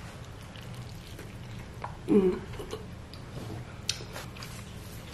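A person chewing a bite of a hard corn-shell taco: a few faint crunches and wet mouth clicks, with a short hum of the voice about two seconds in.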